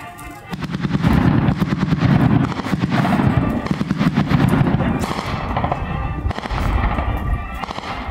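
Rapid automatic machine-gun fire in long bursts, starting about half a second in and thinning out toward the end.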